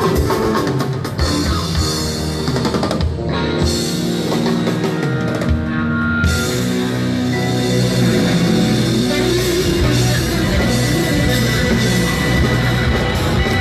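Rock band playing live, with a drum kit and guitar. The cymbals and high end drop away for a few seconds about three seconds in, and the full band comes back in around six seconds.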